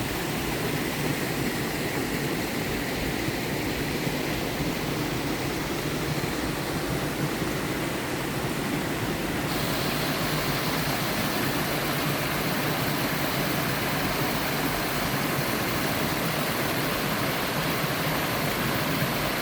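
A three-tiered mountain waterfall rushing steadily into its pools, a constant even roar of falling water. The sound turns brighter and hissier about halfway through.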